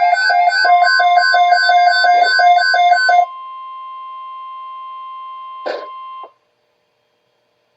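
Emergency alert tones. A loud electronic beeping with several tones pulses about four times a second, and a steady single alert tone begins under it. The beeping stops about three seconds in, and the steady tone carries on more quietly until it cuts off with a click a little before the end, just after a short burst of static.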